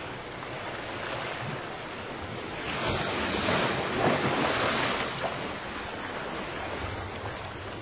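Sea waves washing, a steady rush of water with one wave swelling louder about three seconds in and dying away a couple of seconds later.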